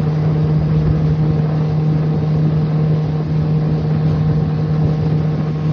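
Engine running steadily at a constant speed, an even drone with no sputter, surge or cut-out.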